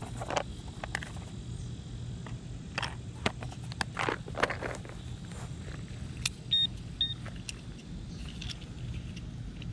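Hands rustling and clicking small items close to the microphone, then two short high electronic beeps about half a second apart from metal-detecting gear, over a steady low hum.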